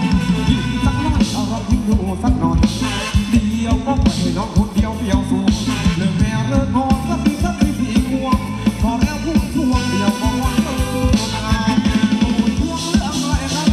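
Amplified live band playing upbeat Thai ramwong dance music, with a steady drum beat and a singer.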